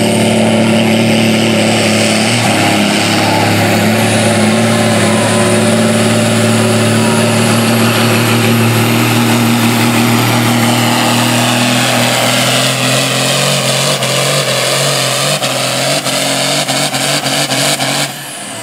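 John Deere diesel pulling tractor at full throttle, hauling a weight-transfer sled, running loud and steady with a high whistle over it. About two-thirds of the way through, the engine note sags as the sled's load builds. Near the end the throttle comes off and the sound drops suddenly.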